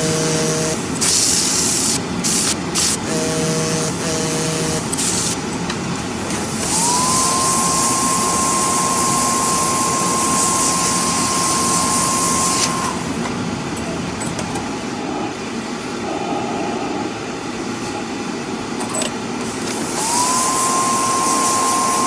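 Stain-removal spotting gun spraying onto a silk scarf in hissing bursts: a short one about a second in, a long one of about six seconds mid-way and another starting near the end. Each long burst comes with a machine whine that rises and then holds steady while it sprays.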